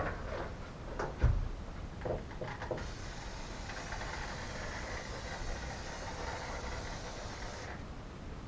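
A few clicks and a thump, then a WD-40 aerosol can spraying in a steady hiss for about five seconds, stopping suddenly. The penetrating oil is going onto a rusted-solid hood hinge to free it.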